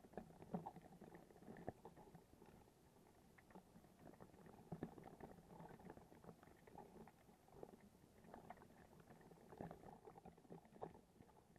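Near silence: faint underwater ambience with a few soft, scattered clicks.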